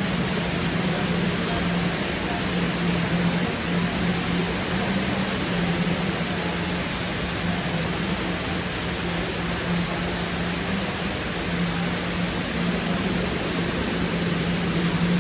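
Indoor cascade waterfall with water falling steadily in an even, unbroken rush, and a low wavering hum underneath.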